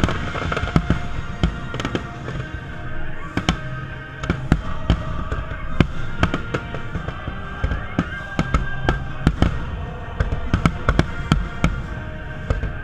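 Aerial fireworks display: shells bursting in quick, irregular succession, many sharp bangs a second, over background music with held notes.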